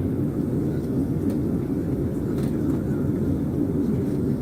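Steady low roar of an airplane's engines and airflow, heard inside the cabin in flight after take-off.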